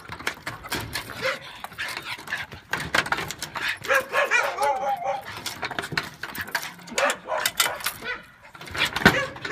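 Dog whining and yelping in short high calls, loudest about four to five seconds in, amid many sharp clinks and clatters.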